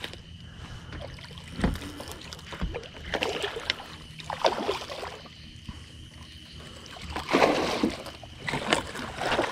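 Irregular splashing and sloshing water beside a boat as a hooked blue catfish is brought alongside, with scattered handling knocks.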